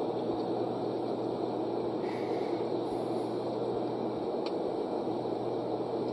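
Steady road and engine noise inside a moving car, picked up by a dashcam's microphone, with a single faint click about four and a half seconds in.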